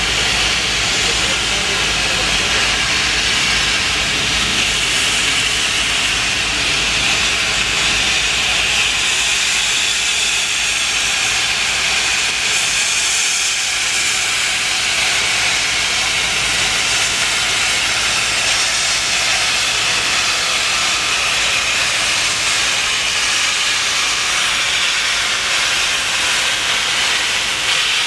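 Beyer-Garratt steam locomotive 6029 hissing loudly and steadily as steam blows out around it while it moves off slowly.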